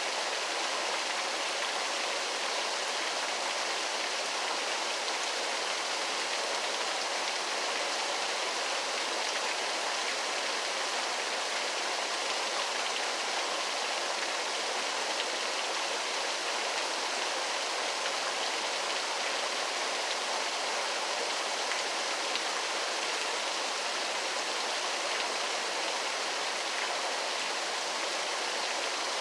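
Waterfall rushing steadily: an even, unbroken wash of falling water, weighted toward the mid and high range with little low rumble.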